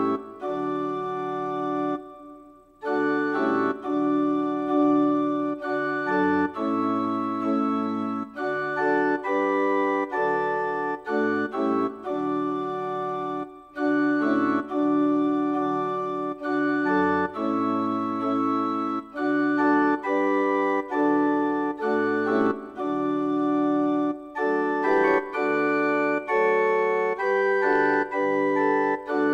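Organ music: held chords over a bass line that steps from note to note, pausing briefly about two seconds in.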